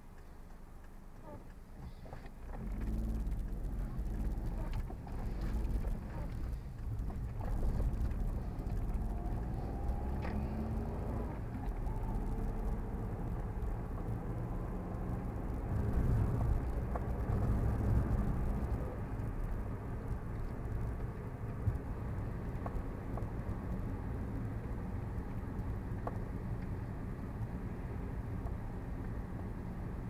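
A car pulls away about two and a half seconds in and drives along a city street. Its engine and tyres make a steady low rumble, and the engine note rises partway through as it gathers speed.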